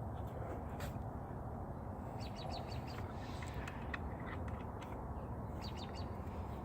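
Small bird chirping: a quick run of four or five high notes about two seconds in and again near the end, over a steady low hum.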